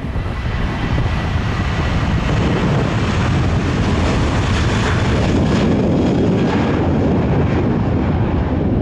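Jet airliner engines running, a broad noise that swells over the first second and then holds steady, with wind buffeting the microphone.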